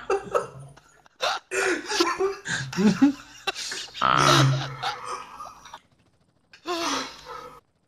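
A sleeping man snoring loudly with throaty snorts, heard through a voice-chat microphone, mixed with laughter. The snores come in irregular bursts, with a short pause and one more snore near the end.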